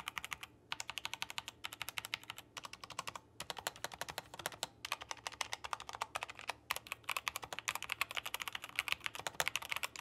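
Fast, continuous typing on a Tecware Phantom 87 mechanical keyboard with Outemu red linear switches and foam in the case and between plate and PCB, in a dense run of key clicks broken by a few short pauses.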